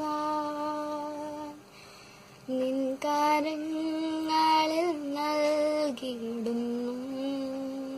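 A girl singing a Malayalam worship song solo and unaccompanied, holding long notes, with a pause for breath about two seconds in.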